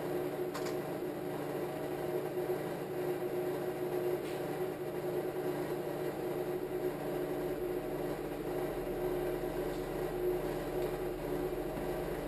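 A steady hum with several fixed tones. About eight to nine seconds in, a deep bass tone joins it: a 15-inch subwoofer wired to half an ohm, driven by an AudioPipe APSM2000 mini amplifier.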